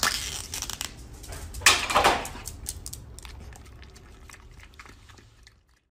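Foil lid of a small yogurt cup crinkling and tearing as it is peeled open, loudest about two seconds in, then a dog licking at the cup with faint wet clicks that fade out.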